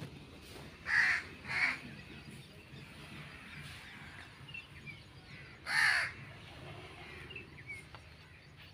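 A crow cawing three times: two short caws close together about a second in, and another near six seconds in, over a low steady hum.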